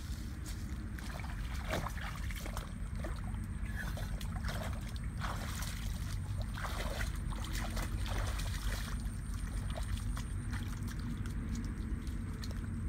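Wind rumbling on the microphone over rustling leafy branches and feet splashing and squelching through shallow muddy water, busiest in the first two-thirds and quieter near the end.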